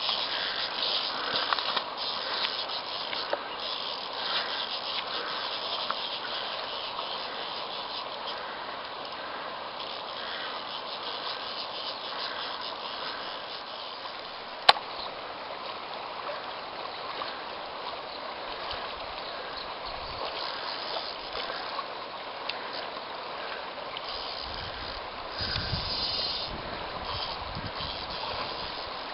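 River water running over a shallow stony riffle, a steady rush. One sharp click about halfway through.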